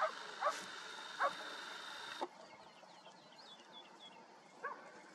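Hunting dogs barking: three short barks in the first second and a half, then one more near the end.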